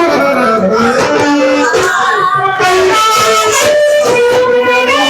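Music with a singing voice over instrumental accompaniment.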